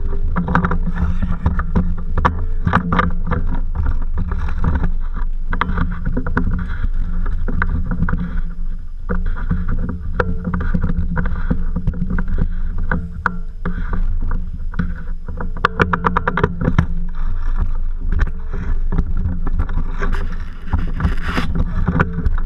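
Airsoft guns firing, with scattered shots and a rapid run of clicks a little past the middle, over a steady low rumble of movement and handling noise.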